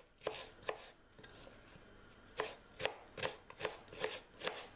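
Kitchen knife slicing a peeled onion on a plastic cutting board: two cuts, a pause, then a steady run of six cuts, about two or three a second.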